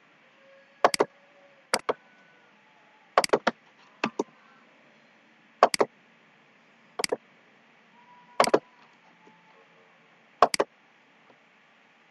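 Computer mouse button clicks, sharp and short, some in quick pairs, about eight times at irregular intervals over faint hiss.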